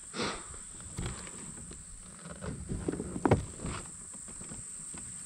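A few short knocks and rustles of a kayak angler handling gear against the plastic hull of the kayak, loudest a little past the middle. Behind them is a steady high-pitched insect drone.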